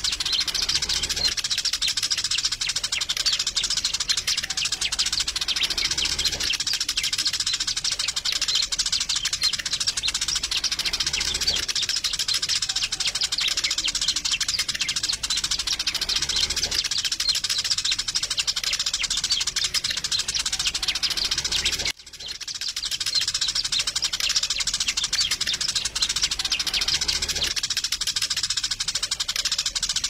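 Eurasian tree sparrows chirping in a dense, continuous chatter. The chirping cuts out for a moment about two-thirds of the way through, then resumes.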